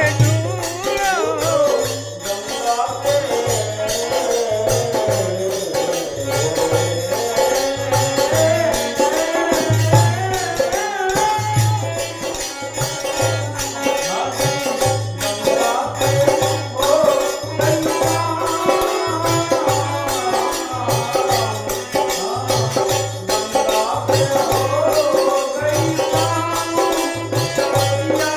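Devotional bhajan music: a melodic line that slides in pitch over a hand drum keeping a steady beat, with jingling, rattling percussion.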